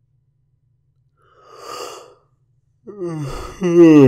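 A man's sleepy yawn: a breath in, then a long voiced exhale whose pitch falls, loudest near the end.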